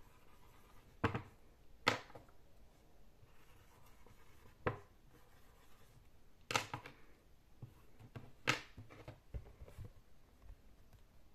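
Dry-erase marker writing on a small whiteboard: about five short, sharp strokes and taps, with faint scratching between and a few soft knocks from handling the board near the end.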